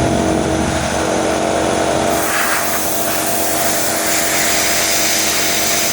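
Machinery running steadily: a loud, even noise over a constant motor hum, turning a little brighter about two seconds in.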